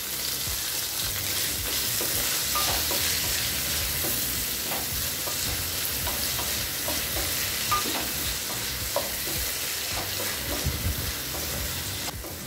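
Brinjal pieces sizzling in hot oil in a metal kadai while a spatula stirs them, with scattered scrapes and clicks of the spatula against the pan.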